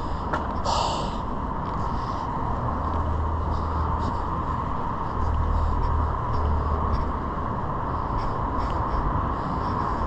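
Steady hum of road traffic, with a short hiss about a second in.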